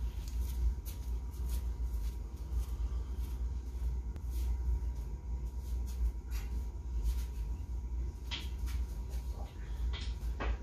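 Light clinks and knocks of a loaded barbell and its plates on a squat rack as the bar is gripped and lifted off the hooks, over a steady low hum. The sharpest knocks come near the end.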